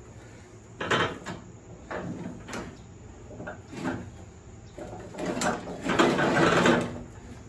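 A steel riding-mower deck being worked out from under a lawn tractor: scattered metal clanks and knocks, then a louder stretch of scraping and dragging about five seconds in.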